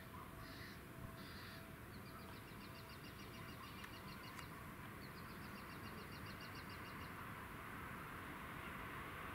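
A bird calling with two rapid trills of high, evenly repeated notes, each lasting about two seconds, over faint outdoor background noise that swells slightly near the end as a distant train approaches.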